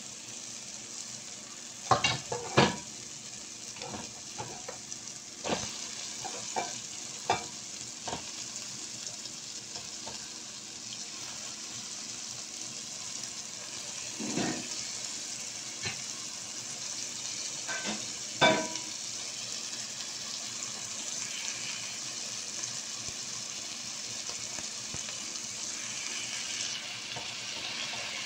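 Onions, tomatoes and spices sizzling steadily in a frying pan, with a wooden spatula knocking against the pan a few times while stirring. Raw chicken pieces go into the pan and the sizzle grows louder in the last few seconds.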